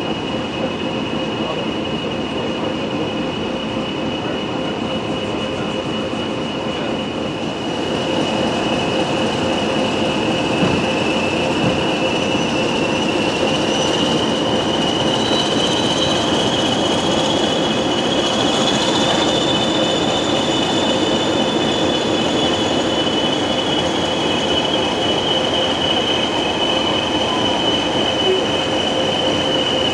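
Two English Electric Class 20 diesel locomotives working in tandem, hauling a train, heard from a carriage window. Their engines drone with a steady high whistle over the running noise. The sound grows louder about eight seconds in, and the whistle rises in pitch near the middle, then slowly falls back.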